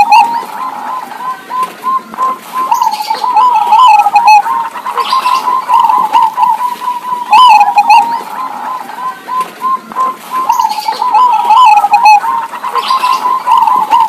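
Zebra doves (perkutut) cooing back and forth: strings of short, quick coos at one pitch, with a louder call phrase right at the start and again about halfway through.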